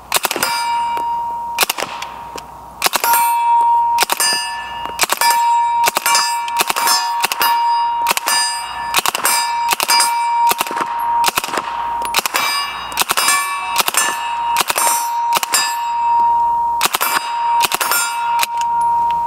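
Suppressed Smith & Wesson Model 76 submachine gun firing subsonic 9mm in short bursts, the muffled shots coming in quick clusters, each followed by a steel plate target ringing as the bullets hit it.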